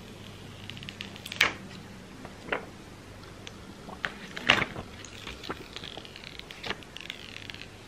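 Clear plastic protective film being peeled off a new iPhone SE and the phone handled: scattered light clicks and taps, two sharper ones about a second and a half and four and a half seconds in, with soft crinkling of the plastic in the later part.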